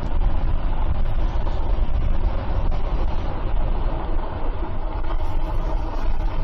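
Steady wind rumble on the microphone, with tyre and road noise, from riding an electric moped-style bike at speed.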